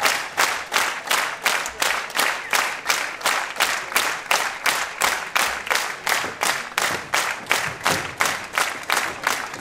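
Audience clapping in unison in a steady rhythm, about three claps a second.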